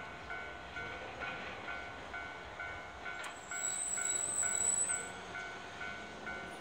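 Japanese railway level-crossing warning bell ringing, a two-tone electronic ding repeating about three times a second. About halfway through, a high-pitched squeal from the approaching train joins in for a second or so.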